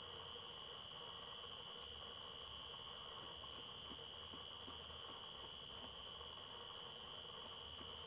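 Steady shrill drone of insects, one unbroken high tone, with faint short chirps above it now and then.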